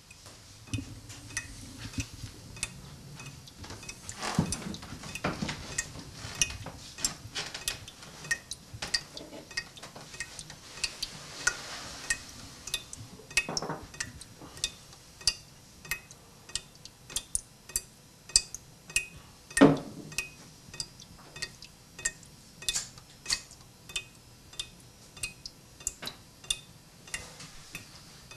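Steady, even ticking like a clock, about three ticks every two seconds, with a few heavier knocks, the loudest about two-thirds of the way through.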